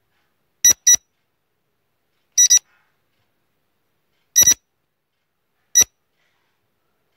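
Countdown timer beep sound effect: short high electronic beeps in four groups about every one and a half to two seconds, the first three groups doubled and the last single, with dead silence between.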